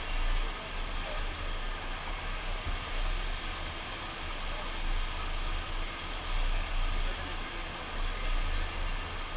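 FlowRider surf machine's sheet of water rushing steadily, with an uneven low rumble underneath.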